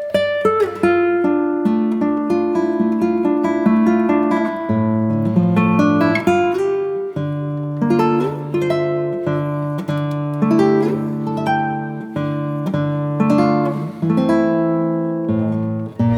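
Instrumental background music: an acoustic guitar playing a run of plucked notes over ringing bass notes.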